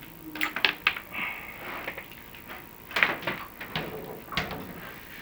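Chimney inspection camera rig scraping and knocking against the clay flue tiles as it is worked down the flue, with a cluster of sharp knocks about half a second in and louder ones at about three seconds and near four and a half seconds.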